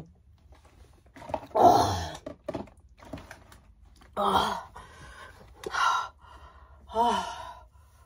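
A woman gasping and groaning after chugging soda. The loudest is a rough burst about a second and a half in, followed by three shorter breathy groans, the last with a falling pitch.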